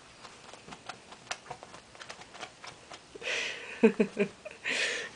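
Light scuffling of a cat bunny-kicking and wrestling a plush catnip banana on a bedspread: a scatter of small ticks and taps, then two short swishes with a quick run of heavier knocks between them near the end.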